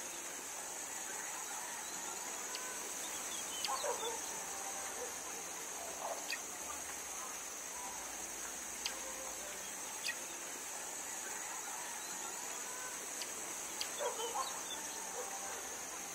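Faint steady high chirring like crickets, with a few short bird-like calls and scattered small clicks.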